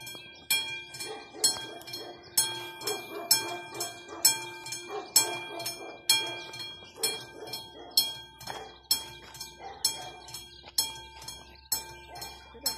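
Railway level crossing warning bell ringing steadily, about one ringing stroke a second, while the red warning light flashes: the crossing is signalling that a train is approaching.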